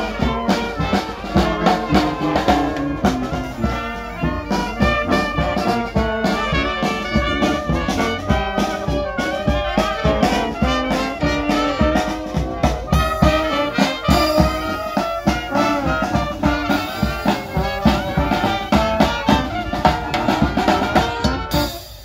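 Small brass band playing a tune: trumpets and trombones carrying the melody over a sousaphone bass line, with snare and bass drum keeping a steady beat.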